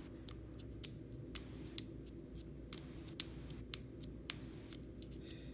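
Small tools clicking and tapping irregularly against an iPhone 6 opened up for a battery replacement, about fifteen sharp clicks over a low steady hum.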